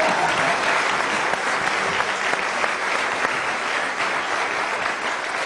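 Studio audience applauding steadily, dying down a little toward the end.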